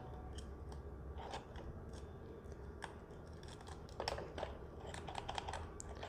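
Faint scattered clicks and scraping of small plastic parts being handled as a small screw-in refrigerator bulb is worked into its holder on a plug-board test rig, with a louder click about four seconds in.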